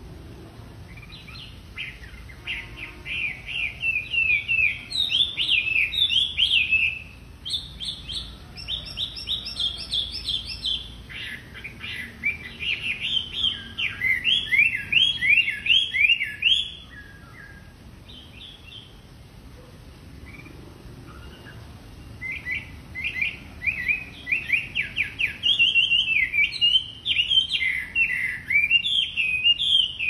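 A caged Chinese hwamei (wambi) singing in full voice: loud phrases of rapidly repeated, slurred whistled notes that change pattern every few seconds. It sings in long bouts, with a lull of about five seconds past the middle.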